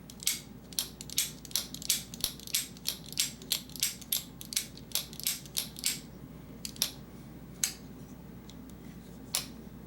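Demko AD20.5 folding knife on freshly installed ceramic caged pivot bearings, its blade being opened and closed over and over: a run of sharp metallic clicks about three a second for six seconds, then a few single clicks spaced further apart. This is the blade's action being tried out after the pivot screw was just tightened.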